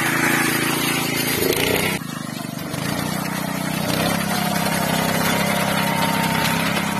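Small engine of a walk-behind rice reaper running steadily as it cuts ripe rice, dipping briefly about two seconds in.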